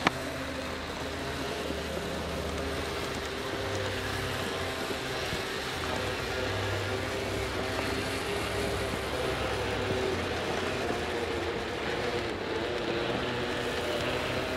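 Large-scale garden model train, a diesel locomotive pushing a snowplow through wet snow on icy rails, running steadily: a constant hum with a few held tones over an even hiss.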